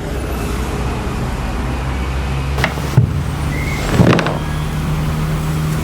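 A motor vehicle's engine running steadily with a low hum, with a few sharp knocks about two and a half, three and four seconds in.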